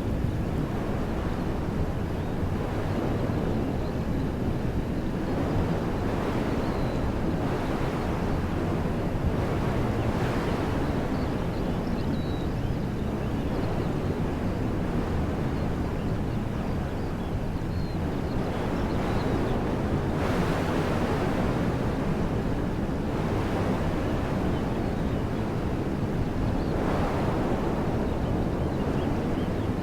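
Wind blowing through woodland trees: a steady rushing that swells in gusts a few times, with a deep rumble of wind on the microphone.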